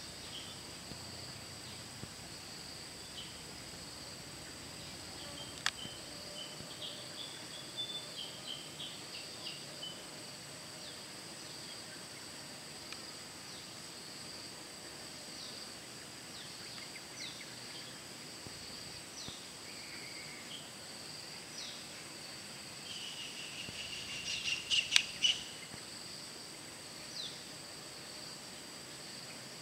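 Outdoor ambience of a steady high-pitched insect drone, with scattered short bird chirps throughout and a louder flurry of chirps near the end. There is one sharp click about six seconds in.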